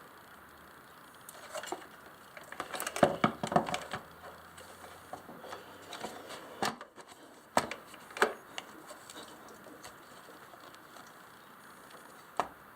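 Hands handling motorcycle battery hardware and parts: a burst of light clicking and clattering about two to four seconds in, then a few separate sharp clicks.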